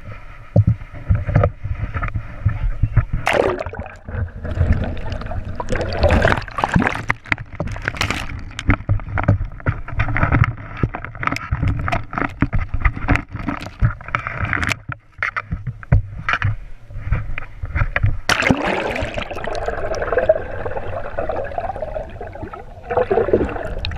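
Water rushing and splashing around an action camera as it is lowered over the side of a moving sailboat and dipped under the surface, with many sharp knocks and splashes. The densest watery rushing comes about three-quarters of the way through, as the camera goes under.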